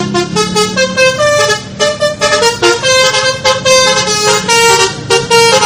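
A horn playing a quick tune: a string of short, loud notes that change pitch several times a second, starting and stopping abruptly.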